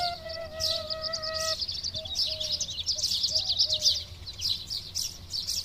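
Recorded birdsong: dense, rapid chirping by several birds, sped up along with the track. A keyboard-like melody fades out under it in the first second and a half, leaving the birds alone.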